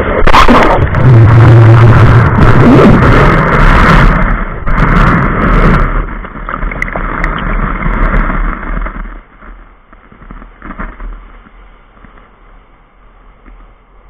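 Sea wave washing over a camera set low on the beach: loud churning, rushing water right at the microphone, starting suddenly. It eases off about nine seconds in as the water drains back, leaving the softer hiss of surf.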